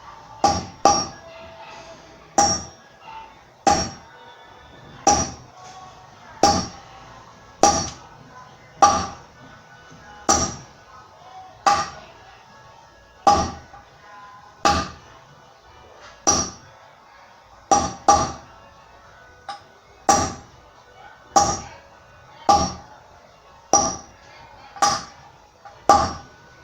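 Hammer blows driving a new wheel bearing into a motorcycle's front wheel hub: about twenty slow, even strikes a little over a second apart, each with a short metallic ring.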